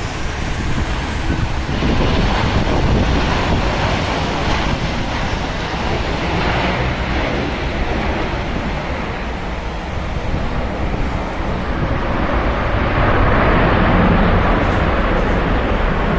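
Steady rushing of traffic on a rain-soaked highway, tyres hissing on the wet road and swelling as cars pass, with wind buffeting the microphone.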